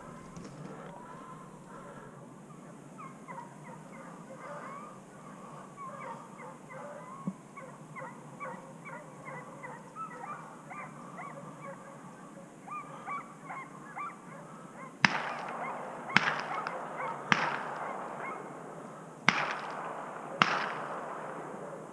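Hunting hounds yelping in the distance on a chase, then five gunshots about a second apart, each with a ringing echo, starting about fifteen seconds in.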